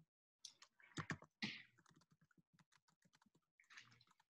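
Faint, quick clicks and taps over near silence, with a few louder taps about a second in.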